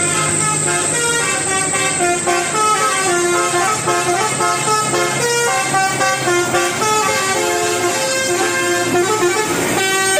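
Basuri telolet multi-tone bus horn playing a quick tune, its sustained notes changing pitch every fraction of a second, over a low steady hum.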